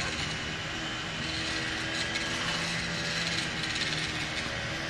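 A long ramrod sliding and scraping inside a PVC potato-cannon barrel, loading a duct-tape-wrapped Play-Doh projectile.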